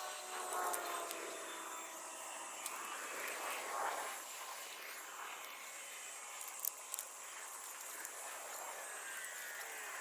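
Radio-controlled Bruder CAT excavator model working, its small motors whining and shifting in pitch. A scraping, rattling rush of gravel swells about three to four seconds in, and two sharp clicks follow a few seconds later.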